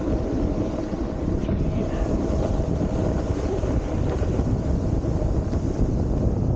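Wind buffeting the microphone while a snowboard slides over groomed corduroy snow, giving a steady, rushing low rumble.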